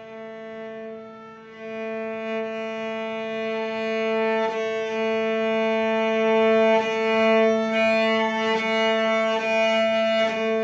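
Music: a bowed string instrument holding one long sustained note, growing louder about two seconds in, with a few brief scrapes.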